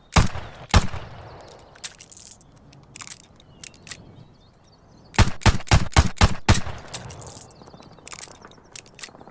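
Top-break revolver firing: two shots about half a second apart, then metallic clicks and a ringing clink, then a fast string of about six shots in a second and a half, followed by more metallic clicks and clinks.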